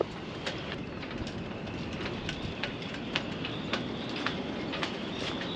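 Footsteps on a marina pontoon deck, light clicks at about two a second, over a steady rush of wind and water.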